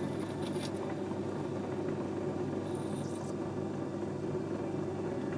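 Small metal-turning lathe running with a steady hum while a parting tool is fed in by hand to cut a pin off a steel hex bar, with faint high cutting noises a couple of times.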